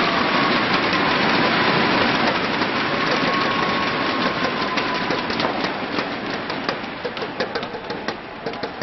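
Arena crowd applauding and cheering after a point, slowly dying down into scattered separate claps.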